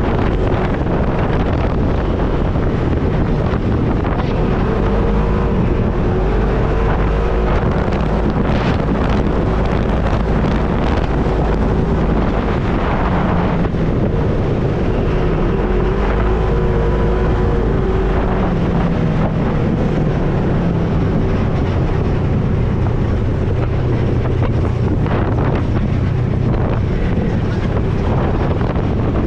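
Off-road vehicle engine running, its note wavering up and down, under heavy wind buffeting on the microphone.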